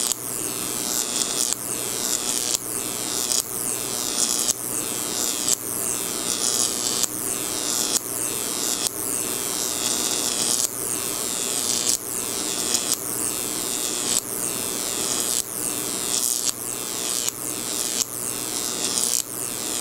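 Jacob's ladder arc between two brass rods, fed by a 10,000-volt oil-furnace ignition transformer: a steady electrical hum under a loud hiss as the arc climbs and stretches, breaking and re-striking with a sharp snap at the bottom roughly once a second, over and over.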